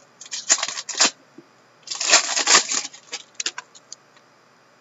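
A pack of hockey trading cards being opened and handled: the wrapper crinkles and cards slide against each other. There are short rustling bursts near the start, a longer louder one about two seconds in, and a few sharp ticks just after it.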